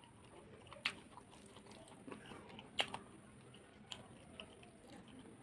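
A person chewing a mouthful of rice and curry close to the microphone, with soft wet mouth noises and three sharp lip smacks or clicks: about a second in, near three seconds and near four seconds.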